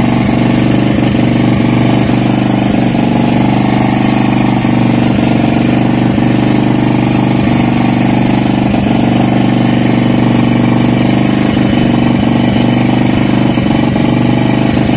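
A motor on the boat runs steadily at a constant speed, a loud unbroken hum that does not change through the whole stretch.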